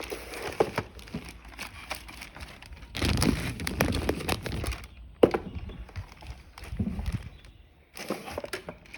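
Keyboard packaging being handled and pulled out of its box: continuous crackling and rustling with knocks, loudest for about two seconds in the middle, then a single sharp crack.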